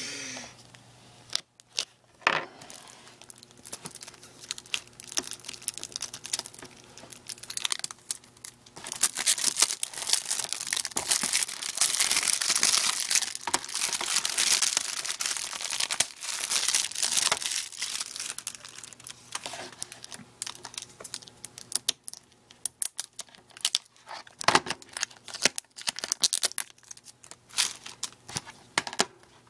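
Plastic shrink wrap being torn and peeled off a DVD case, a stretch of crinkling and crackling that is densest and loudest from about nine to seventeen seconds in, with scattered crackles before and after.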